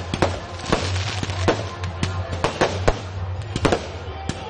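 Firecrackers going off in quick, uneven bangs, about four a second: the crackers packed into a Ravana effigy exploding as it is destroyed.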